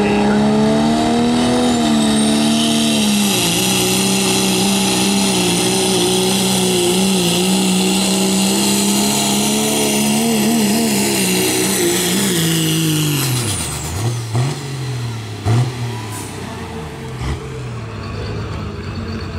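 Dodge pickup's Cummins inline-six turbodiesel at full throttle pulling a sled, held at high revs with a high turbo whistle over it, its pitch wavering under load. About thirteen seconds in the throttle comes off, the revs and whistle fall away with a few sharp knocks, and the engine settles toward idle near the end.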